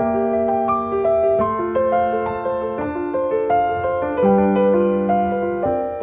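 Piano music: a gentle melody of notes over held lower notes, played at an even pace.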